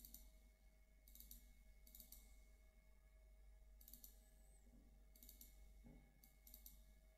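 Near silence with a handful of faint computer-mouse clicks, some in quick pairs, spaced one to two seconds apart.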